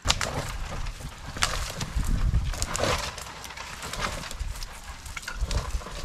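Irregular knocks, snaps and rustling from handling wood and branches while building a tent shelter, with dull low thuds between them.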